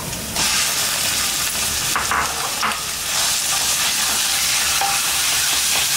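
Raw chicken mince hitting hot oil in a kadhai with chopped garlic, ginger and green chilli: the sizzle jumps up sharply about a third of a second in and carries on steadily. A wooden spatula stirs and scrapes the mince against the pan a few times.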